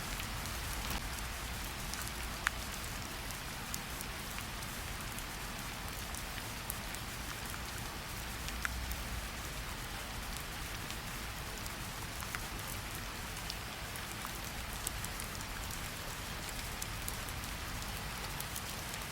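Steady rain falling on a surface, with a low rumble beneath it and scattered sharp crackles and pops from a wood fire, a loud one about two and a half seconds in.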